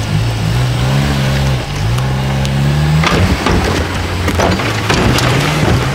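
Suzuki Jimny's engine revving under load as it crawls over rocks, its pitch stepping up and down. From about three seconds in, a run of sharp cracks and knocks sounds over the engine.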